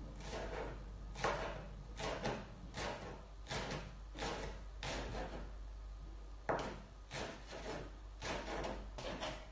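Chef's knife slicing spring onions on a plastic cutting board: a steady run of short knife strokes knocking on the board, about one to two a second, with a brief pause a little past the middle.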